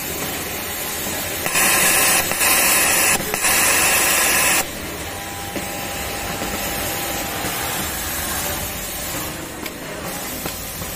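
Industrial overlock sewing machine running in three short, loud bursts between about one and a half and four and a half seconds in, each with a hissing rush of air. A steady hum and hiss of workshop machinery runs underneath.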